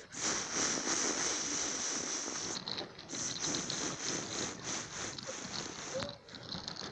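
Wooden toy trains, an engine and coaches, rolling along a toy railway track: a steady rattle of small wheels that eases off near the end.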